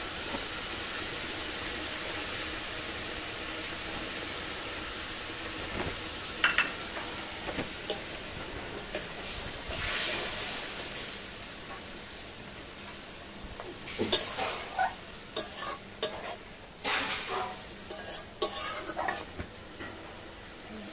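Koi fish curry sizzling in a metal kadai, nearly done, while a metal spatula stirs it, scraping and clinking against the pan. The clinks and scrapes come thicker and louder in the second half.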